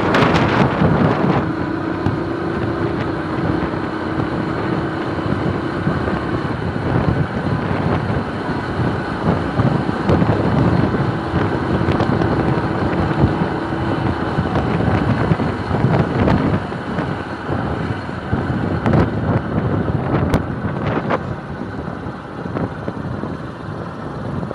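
Motorcycle riding along, with wind rushing over the microphone and the engine running underneath. A faint steady tone in the engine note comes and goes, and a few sharp ticks come near the end.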